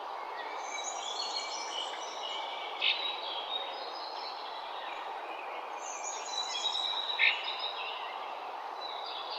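Morning ambience: several birds chirping and whistling over a steady background noise. The song comes in two spells, one in the first few seconds and one about six seconds in, each with one loud sharp chirp.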